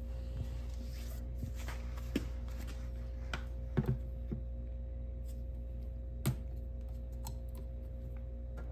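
Scattered light plastic clicks and taps from a bottle of bar-and-chain oil being handled and its screw cap twisted off, with two sharper clicks near the middle and about six seconds in. A steady low hum runs underneath.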